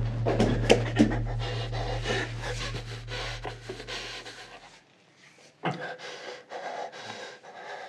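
A man panting hard to catch his breath after running, the breaths slowing and growing quieter. A low steady hum underneath fades out about halfway, and a few softer breaths follow.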